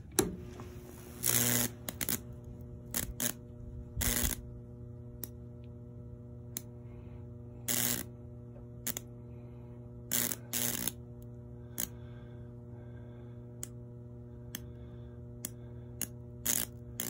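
Microwave-oven transformer switched on at the start, buzzing with a steady mains hum under load. Over it come irregular sharp snaps and crackles, a few seconds apart, as high voltage drives current through the wet baking-soda solution between the nail electrodes on red oak, drying the surface near the nails.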